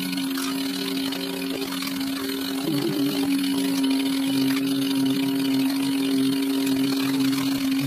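Car cabin sound sped up fourteen-fold: engine and road noise turned into a steady, even buzzing drone, getting a little louder about three seconds in.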